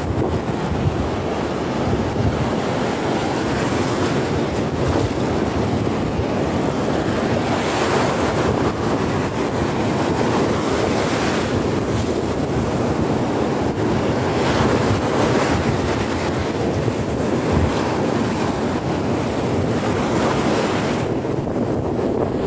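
Shallow surf washing up onto a sandy beach, with wind buffeting the microphone.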